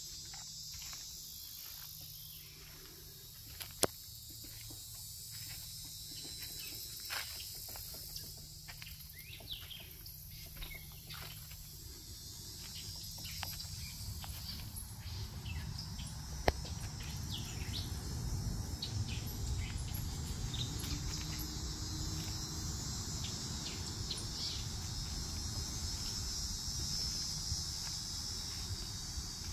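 Dense, steady, high-pitched insect chorus, with footsteps along the trail. Two sharp clicks sound, one a few seconds in and one about halfway through. A low rumble comes in and grows louder in the second half.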